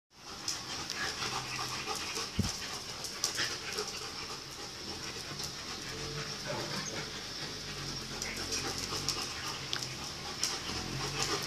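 Dog panting, with scattered sharp clicks and taps over a steady high hiss.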